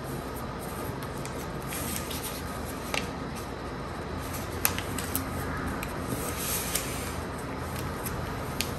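A sheet of paper being folded and creased by hand into a paper airplane: rustling and rubbing, with several sharp crisp snaps as creases are pressed in.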